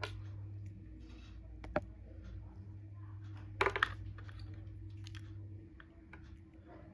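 Small clicks and handling noise from a smartwatch and its magnetic charging cable being handled, the loudest a quick cluster of clicks a little under four seconds in. A steady low hum runs underneath.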